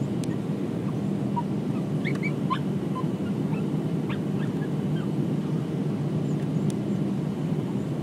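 Steady engine and airflow roar heard inside the cabin of a Boeing 737-800 with CFM56-7B turbofans, during the descent on approach, with a low steady hum. A few faint short squeaks sound over it two to five seconds in.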